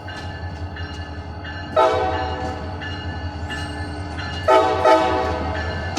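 CSX freight locomotive's air horn sounding short blasts: one about two seconds in, then two quick ones close together about four and a half seconds in, over the train's steady low rumble.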